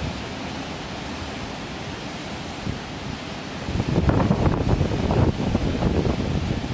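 Rough surf breaking on a rocky shore in high wind, a steady wash of noise. About four seconds in it grows louder and rougher as a gust of wind buffets the microphone.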